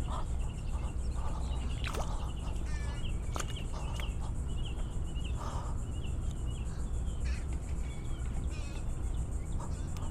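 Muscovy ducks mating, with short high chirps repeating throughout and a few soft breathy bursts, over a steady low rumble.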